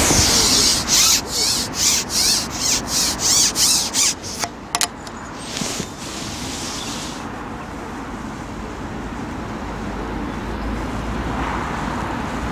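Carbon fishing pole being slid back in about ten quick rubbing strokes as it is shipped back while a hooked fish is played. A sharp click follows, then one longer slide.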